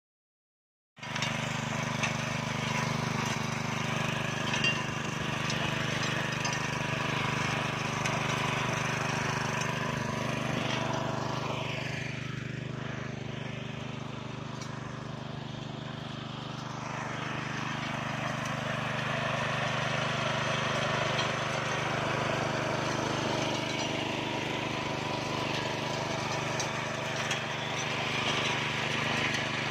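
The 7 hp petrol engine of a VIS 100-BR walk-behind rotary weeder runs steadily while its rotary blades churn through the soil. The sound starts about a second in and is a little quieter for a few seconds in the middle.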